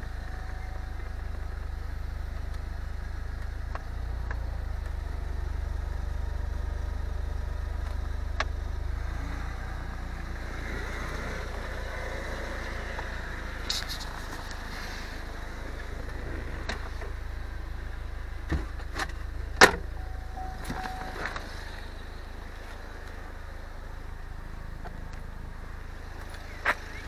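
Opel GT roadster's engine running at idle, a steady low hum, with a few sharp knocks and clicks over it, the loudest about two thirds of the way through.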